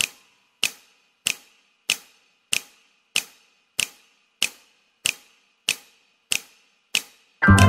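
Evenly spaced sharp ticks, about three every two seconds, some of them doubled, each with a short ringing tail. Music cuts in abruptly near the end.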